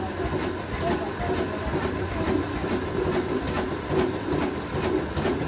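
Old stationary diesel engine with a large flywheel running steadily, with a rhythmic mechanical clatter.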